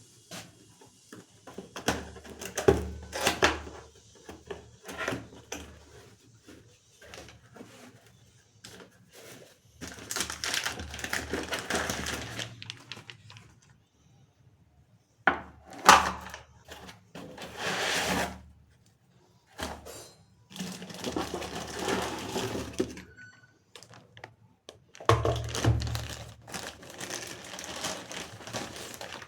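An electric kettle being handled: a string of knocks and clicks, broken by several stretches of rustling or rushing noise, each a few seconds long.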